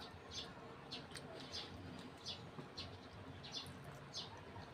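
Small birds chirping faintly in the background, a short high chirp about twice a second.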